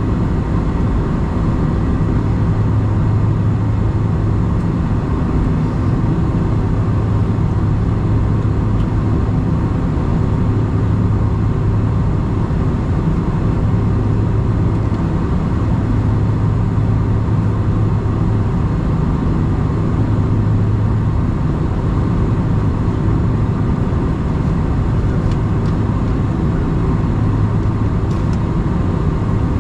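Steady cabin rumble inside a Boeing 747-400 airliner, its engines and air systems running with a low, even hum that does not change.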